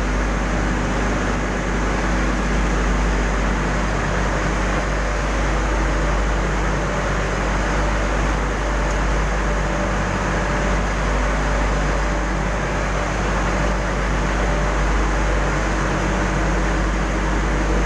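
Steady, loud industrial noise with a deep hum from a running furnace, unchanging throughout.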